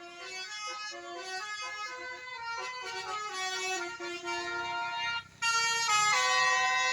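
Bus 'telolet' multi-tone air horn playing a tune, its notes stepping up and down in quick succession. It grows louder about five and a half seconds in.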